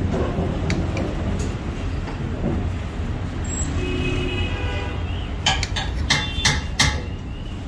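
Steady low rumble of street noise with a brief tone about four seconds in, then a quick run of about six sharp knocks near the end.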